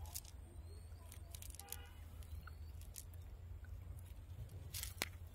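Faint handling noise of a fine-mesh fishing net being worked by hand as small fish are picked out of it: scattered light clicks and crackles, one sharper click near the end, over a low steady hum.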